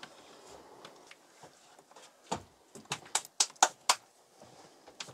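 A run of short, sharp clicks and knocks from hardware being handled while a solar microinverter is fitted and wired: one about two seconds in, then a quick cluster of five or so over the next second and a half.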